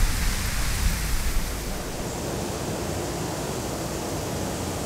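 Steady hiss from a Rode VideoMicro shotgun microphone with its sound boosted in editing: the microphone's own noise floor and outdoor ambience, with a low rumble during the first second or two that thins to an even hiss.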